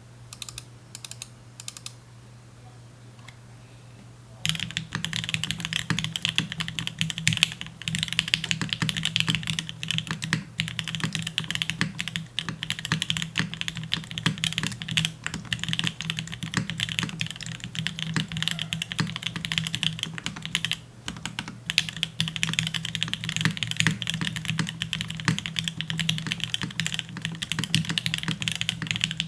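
Typing on a custom mechanical keyboard: a TGR Jane V2.0 with lubed, filmed Gateron Ink Black linear switches on a full FR4 plate and GMK Bushido keycaps. A few scattered keystrokes come first, then fast continuous typing starts about four seconds in, with a brief pause about three-quarters of the way through.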